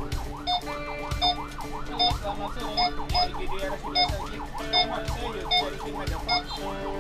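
Ambulance siren in a fast yelp, its tone sweeping up and down about three times a second, with a low thump about once a second and short high beeps underneath.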